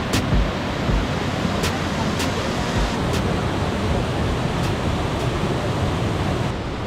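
Mountain stream rushing steadily down rocky cascades and small waterfalls. Faint sharp clicks come in pairs every few seconds.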